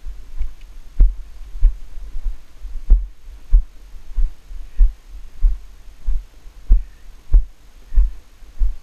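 Ridden horse moving at a steady gait, heard from the rider's helmet camera: a low thump with a light click about every two-thirds of a second, one for each stride.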